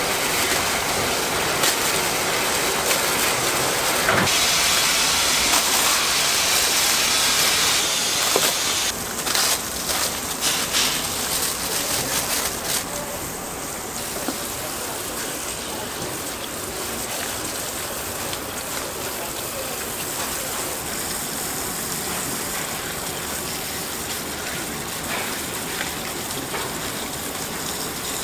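Water from a sink spray nozzle hissing and splashing onto green grapes in a perforated stainless-steel colander. It is steady, and a little quieter from about halfway through.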